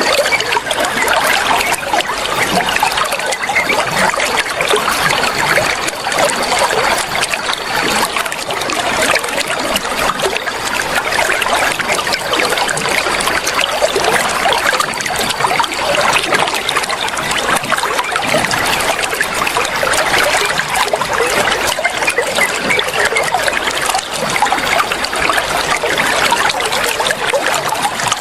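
Flowing water, a steady even rush of trickling and splashing with no pauses.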